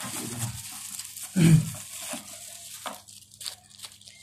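Disposable plastic glove crinkling and rustling as hands handle an ink syringe and bottle, with a few light clicks. A brief, louder low sound about one and a half seconds in.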